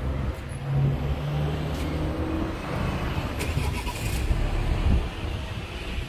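A car driving past on the street: its engine note shows briefly in the first seconds over a low rumble of street noise.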